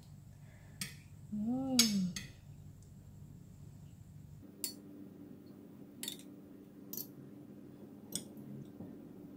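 Metal spoon and fork clinking against ceramic plates as food is served onto a plate of rice: a series of light clinks, the loudest about two seconds in. A short hummed voice sound, rising and falling in pitch, comes just before the loudest clink.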